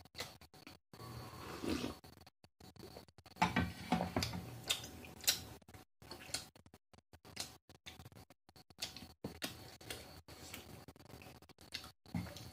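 Close-miked clicks and taps of a spoon and fingers on small ceramic bowls and a plate while food is prepared at the table, with a louder, busier stretch of handling noise about three and a half seconds in.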